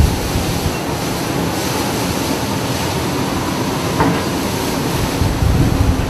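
Loud, steady rushing and rumbling of storm wind and heavy seas heard aboard a ship, with a sharp knock about four seconds in and heavier low pounding near the end.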